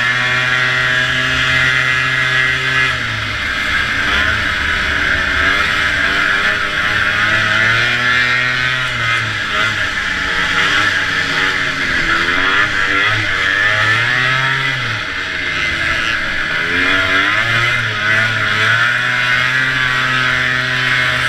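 Vintage snowmobile's two-stroke engine running at race speed. Its pitch holds for the first few seconds, then drops and climbs again several times as the throttle is eased and reopened, over a steady hiss.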